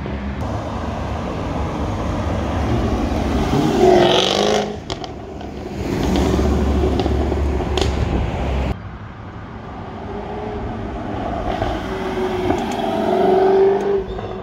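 Jaguar F-Type with a modified exhaust accelerating hard, its engine note rising to a peak three times, with a few sharp exhaust pops. The second run cuts off abruptly.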